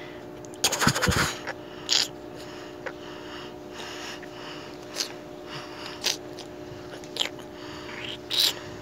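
A Lego-brick toy gun handled in the hands: a quick burst of plastic clicking and rattling about a second in, then a few short hissing noises, over a steady low hum.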